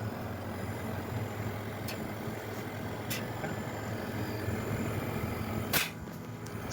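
Refrigeration compressor running with a steady hum, and a hiss of gas blowing out through the cut-open refrigerant line as it is pressure-flushed to check whether oil comes out. A few sharp clicks sound about two, three and six seconds in.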